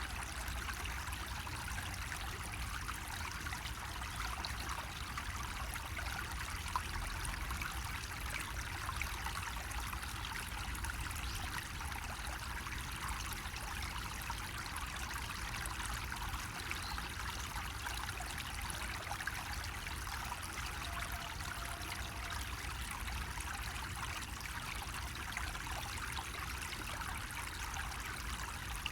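Water trickling steadily from a bamboo spout, a continuous splashing over a low, steady rumble.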